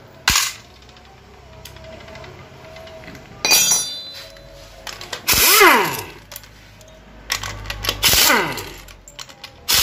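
Cordless electric driver running in three short bursts, each spinning up and winding down, as it backs out the bolts holding an automatic transmission's valve body. A sharp click comes just after the start and a bright metallic clatter about three and a half seconds in.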